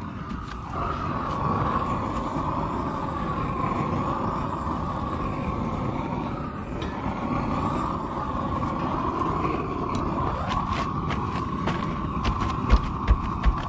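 Lincoln Electric Inferno propane roofing torch burning steadily, heating polyethylene film. Sharp clicks and a few loud knocks come in near the end.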